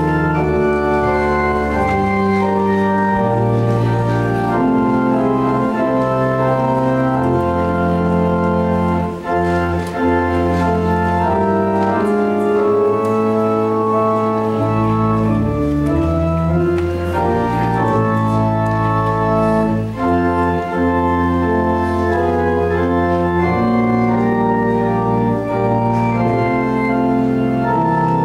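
Church organ playing slow held chords over deep pedal bass notes, the harmony changing every second or two.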